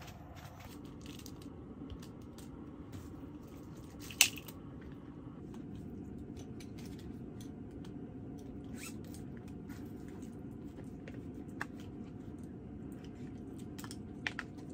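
Small dog being hand-fed treats, with light chewing and crunching and small clicks and rustles of snack packaging, over a steady low hum. A single sharp click about four seconds in is the loudest sound.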